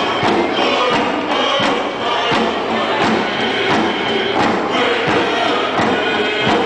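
Hand drums beaten together in a steady beat, about one and a half beats a second, under a group of voices singing a song.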